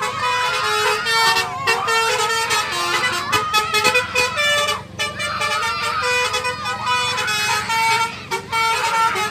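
A tour bus's multi-tone telolet 'basuri' horn playing a tune in quick stepped notes, with only short breaks.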